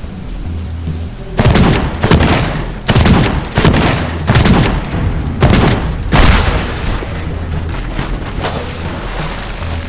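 Close thunder from a nearby lightning strike: a run of loud crackling booms, about six, starting a second and a half in and lasting some five seconds, over the steady hiss of rain.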